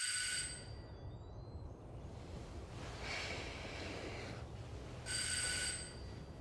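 Electronic doorbell ringing twice, each a short ring of high steady tones, about five seconds apart, over a low steady hum.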